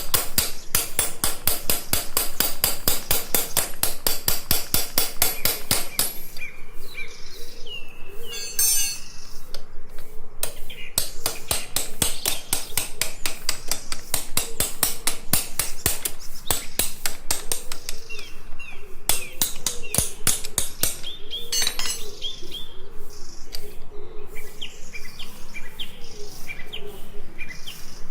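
Steady, rapid hammer blows on metal, several strikes a second, with birds chirping in the background.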